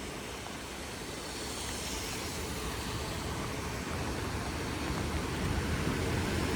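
Steady hiss of heavy rain on a city street, with road traffic rumbling underneath and growing gradually louder.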